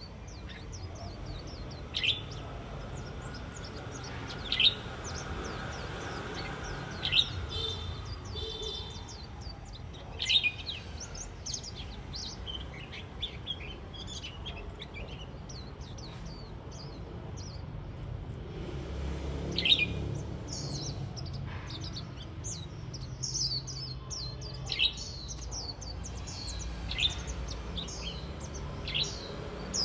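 White-eyes calling and twittering: short sharp chirps every few seconds, with fainter high chattering in between that gets busier in the second half. A faint low hum runs underneath.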